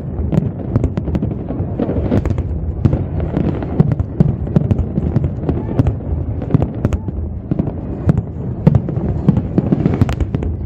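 Aerial firework shells bursting in quick succession: a dense run of sharp bangs, several a second, over a continuous low rumble.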